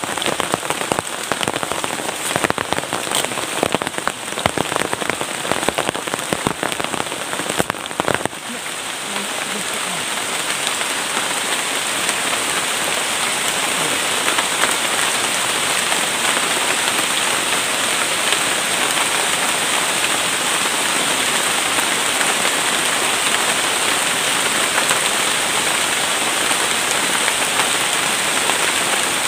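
Heavy tropical rain. For the first eight seconds or so it comes as many sharp, close drop hits over a hiss. After that it becomes a denser, steady downpour hiss.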